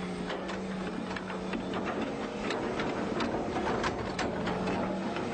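Excavator engine running steadily while digging, with irregular clicks and knocks from the working machine.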